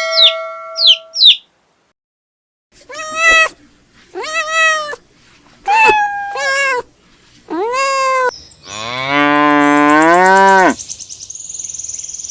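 A few brief high chirps, then a cat meowing five times in short rising-and-falling calls, followed by a cow giving one long, low moo of about two seconds.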